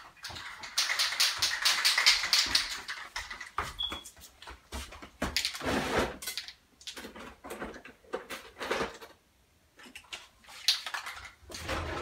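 Rummaging through craft supplies: a quick run of rapid clicking and rattling about a second in, then scattered knocks, clunks and rustling as objects are picked up and moved.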